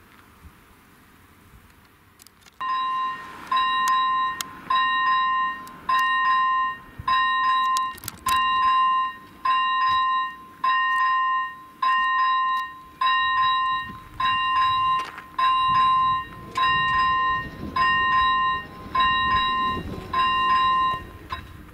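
Level-crossing warning bell switching on about two and a half seconds in and sounding a repeated ringing tone, about one ring a second, as the crossing is activated for an approaching train. It stops shortly before the end.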